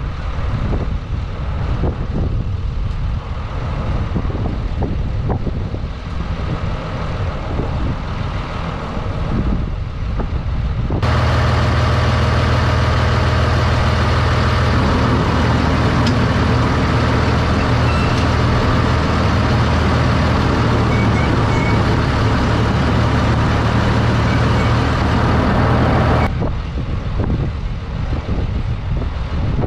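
Ruston Bucyrus 22RB dragline's engine running steadily. About a third of the way in the sound switches to inside the cab, where it is louder, with a strong steady low engine drone. It switches back to the more distant outside sound near the end.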